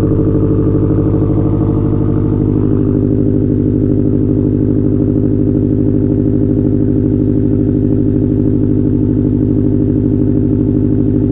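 2016 Subaru WRX STI's turbocharged 2.5-litre flat-four engine idling steadily through its exhaust after a cold start, with an even, fast pulse.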